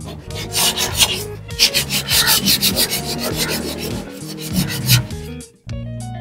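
400-grit sandpaper rubbed by hand over a car body panel in quick back-and-forth strokes, several a second, smoothing flaking paint and old body filler before new filler goes on. The strokes stop about five and a half seconds in, leaving only background music.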